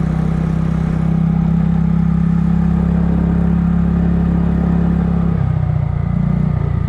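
Kymco People scooter's engine running at steady revs on the move. About five and a half seconds in, its steady note breaks up and shifts in pitch.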